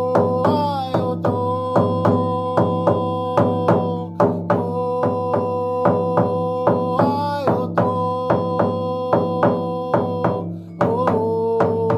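Music: a drum beating a steady, even pulse under a sustained held tone that swoops in pitch twice.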